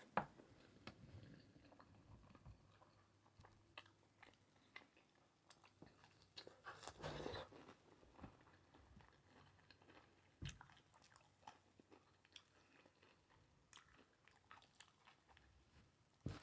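Faint close-up eating sounds: a person chewing food, with scattered small clicks throughout. There is a louder crunchy stretch about seven seconds in and one sharper click a few seconds later.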